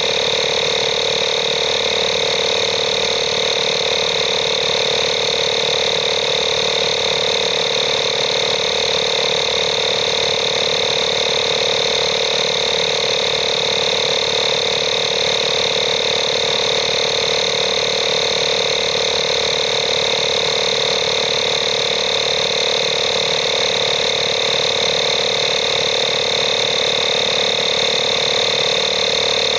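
INGCO digital portable tyre inflator running steadily, its electric motor-driven air pump humming without change while it pumps up a tyre, the pressure climbing past 30 psi.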